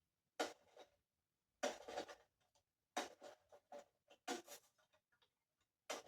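Faint, irregular scraping and rustling noises: five short bursts about a second apart.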